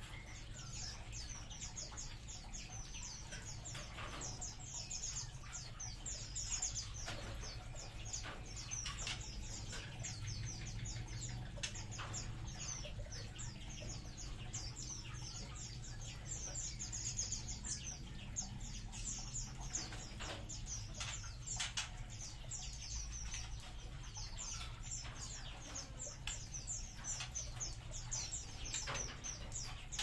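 A colony of white-rumped shamas chirping constantly, many short high calls overlapping without a break, with occasional brief wing flutters.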